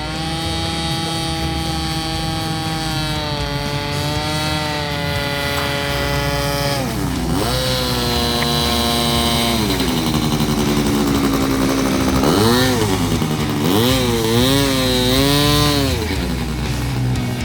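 Engines of a radio-controlled Cessna 310 twin model running in flight, a buzzing whose pitch holds steady, then swoops down and back up about halfway through and again in several quick swoops near the end as the throttle changes or the plane passes by.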